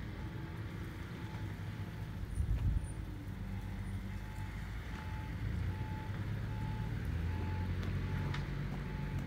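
A vehicle engine running with a reversing alarm giving short, evenly spaced beeps, and a brief louder low rumble about two and a half seconds in.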